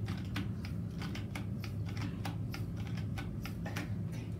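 Quick, irregular clicks, several a second, as a sponge mop is worked up and down in a plastic bucket of water. A steady low hum runs underneath.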